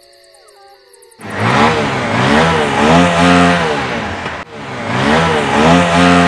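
About a second in, a motorcycle engine starts revving loudly: two long revs, each rising and falling in pitch, with a brief dip between them. Soft music plays before the engine comes in.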